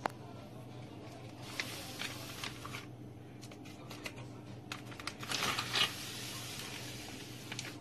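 Crinkling plastic and scattered clicks as a large spiny crab is handled on a plastic bag. Two bursts of rustling, the louder one about five to six seconds in, over a steady low electrical hum.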